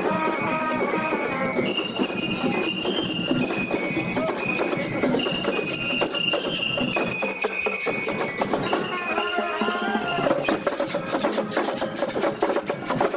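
Latin-style school marching band playing: brass and bell lyres carry a melody over drums. About ten seconds in, the melody largely drops out and the drums take over with a fast, steady beat.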